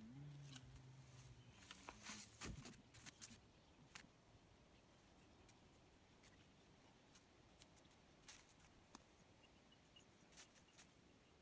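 Near silence with faint scattered clicks and crackles of footsteps and a long wooden pole being handled in forest undergrowth, busier in the first few seconds and sparser after.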